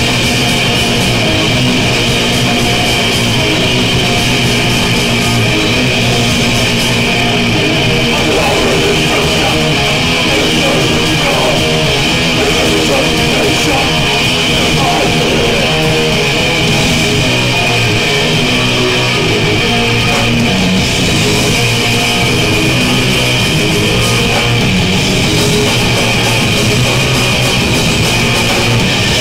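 Live metal band playing: distorted electric guitars over a drum kit, loud and continuous.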